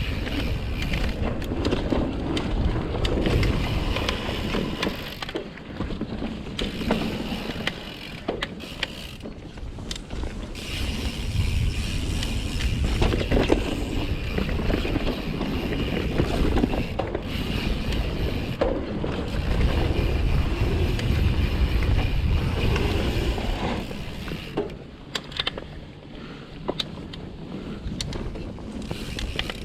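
Mountain bike riding down dirt singletrack: tyres rolling on dirt and the bike rattling with scattered knocks over bumps, with wind rushing over the helmet-camera's microphone.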